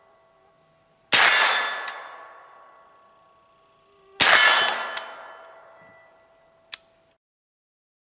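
Two shots from a suppressed 9mm CMMG Banshee radial delayed blowback pistol, about three seconds apart, each ringing out long and slowly. A few light sharp ticks follow the shots.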